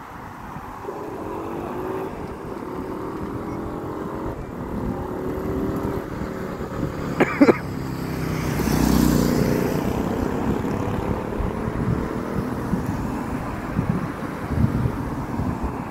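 Road traffic passing, its pitch gliding as it goes by, with a sharp crack about seven seconds in.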